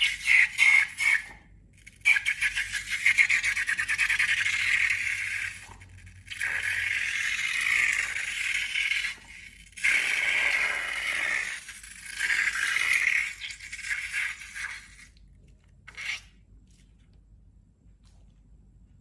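Slime being squeezed and stretched by hand: repeated wet, crackly squishing in bursts of one to three seconds with short pauses between, stopping about three seconds before the end.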